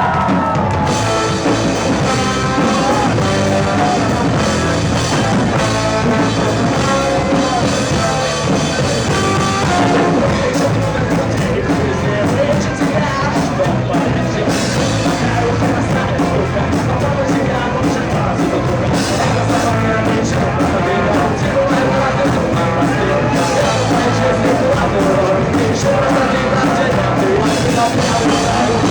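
Rock band playing live, loud and continuous, with a singer over the band.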